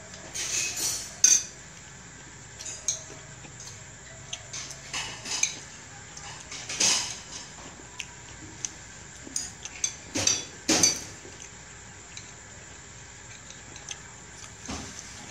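Metal spoons and chopsticks clinking and scraping against ceramic plates and bowls during a meal: scattered irregular clinks, with louder ones near the start, around the middle and about two-thirds through.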